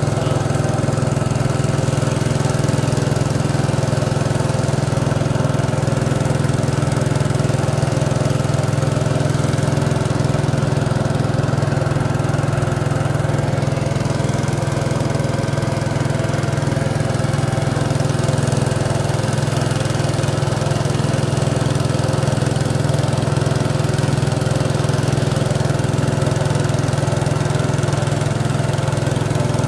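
Small wooden river boat's engine running steadily while the boat is under way, with a steady, unchanging note throughout.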